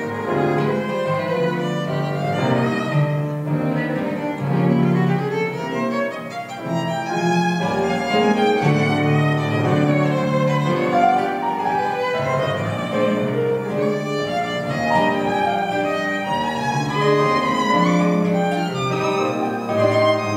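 A live tango trio of violin, grand piano and guitar playing, with the bowed violin out in front.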